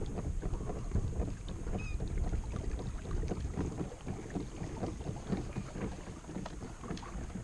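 Water lapping and sloshing against a plastic kayak hull, with small knocks and a low wind rumble on the microphone.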